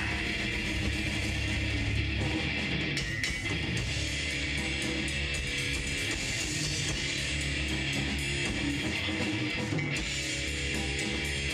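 Death metal band playing live, heavy distorted electric guitars to the fore, without a break.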